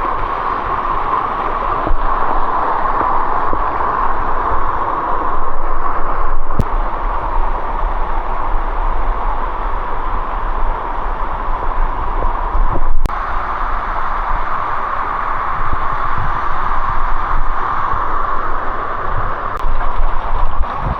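Steady, loud rush of a waterfall falling close by, with a low rumble underneath.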